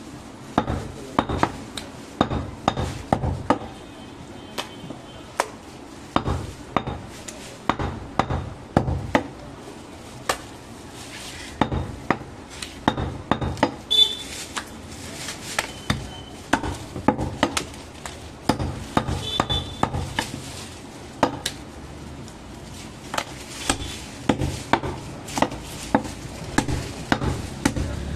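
Heavy butcher's knife chopping goat meat on a thick wooden log chopping block: repeated sharp thuds, often a couple a second, in irregular runs with short pauses between.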